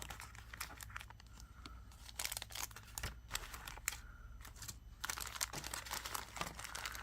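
Small plastic bead packets crinkling and rustling as they are handled and sorted, in irregular bursts of crackle that are busiest about two seconds in and again around five seconds in.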